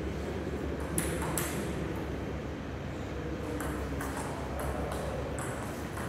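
Table tennis rally: the plastic ball clicking sharply off the bats and the table, twice near the start and then in a quicker run of hits from about halfway through, over a steady low hum in the hall.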